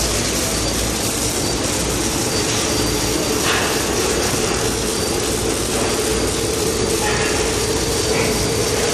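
Steady mechanical running noise with a faint steady hum, from an industrial robot's linear rail travel unit in motion.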